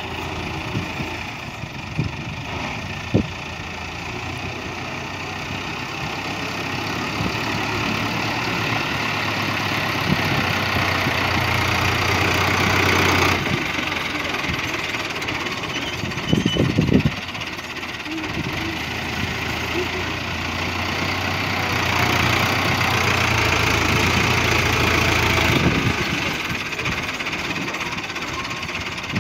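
Diesel tractor engine running while its front dozer blade pushes soil. It works harder and louder twice for several seconds, dropping back abruptly each time, with a brief clatter of knocks about halfway through.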